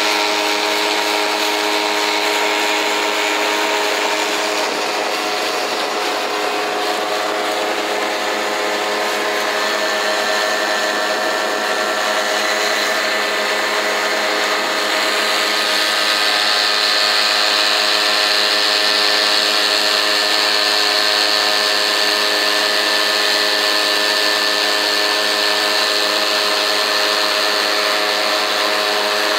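Small outboard motor running steadily at cruising speed, driving a flat-bottomed boat across a lake.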